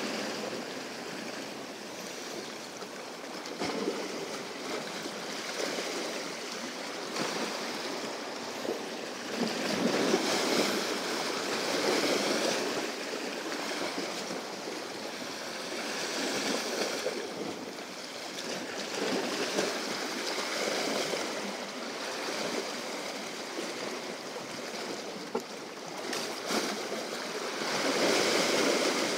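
Sea waves surging and breaking against the rocks of a rocky shore, the wash swelling and fading every few seconds.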